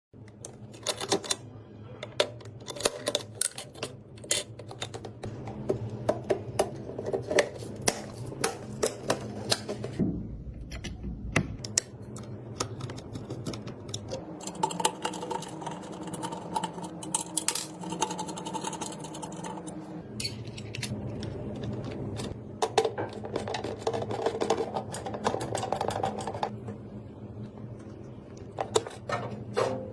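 Background music with frequent sharp clicks and taps, from computer parts being handled and fitted together during a PC build.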